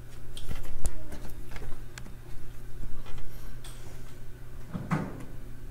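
A few scattered light clicks of a computer mouse, uneven and spaced out, over a steady low hum, with a brief soft noise near the end.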